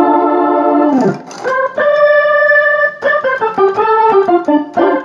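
Organ sound from an S-Engine sound module, played on a MIDI keyboard: a held chord that slides down in pitch about a second in, then sustained chords and a descending run of shorter notes.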